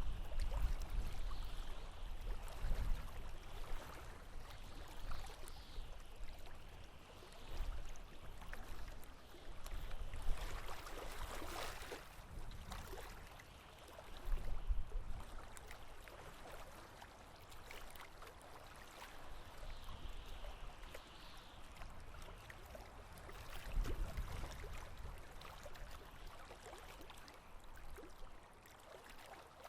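Water lapping and gurgling against a boat, with low rumbles swelling now and then and a brief louder swash of water about eleven seconds in.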